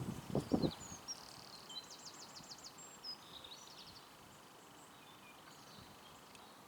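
Small songbirds chirping in the background, one giving a fast, evenly repeated trill, over a faint steady high buzz. A few soft low rustles come right at the start.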